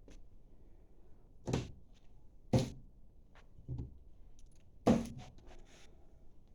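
About four knocks and thumps roughly a second apart, the last the loudest, with small clicks and rattles between them: objects or wood being bumped and handled.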